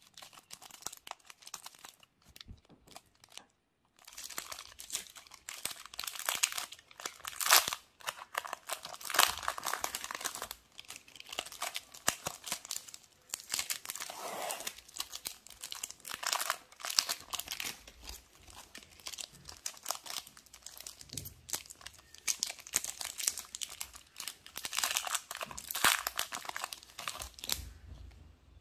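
Shiny foil wrappers of Nestlé Munch wafer bars being cut and peeled open by hand. A few light snips and ticks in the first few seconds give way to dense crinkling and tearing of the wrappers, which stops just before the end.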